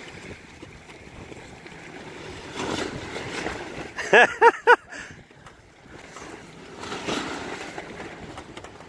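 Water rushing and splashing around a swimmer being towed alongside a sailboat under sail, with wind on the microphone. About four seconds in, three short, loud, pitched calls in quick succession.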